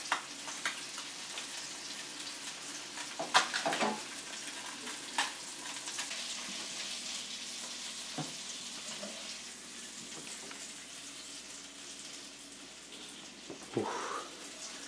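Northern pike fillet frying in butter and oil in a hot nonstick pan: a steady sizzle, broken by a few short clinks and knocks, the loudest about three and a half seconds in.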